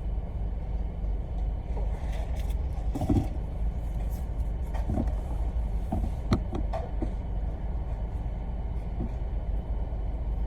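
Car engine idling, a steady low rumble heard from inside the cabin, with a few light clicks and knocks about three, five and six seconds in.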